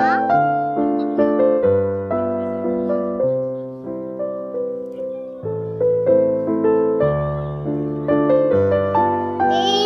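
Background piano music: a gentle melody of single notes over held chords, each note fading before the next.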